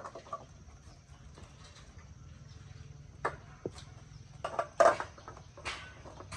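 A few sharp knocks and clatters, the loudest about five seconds in, over a low steady hum.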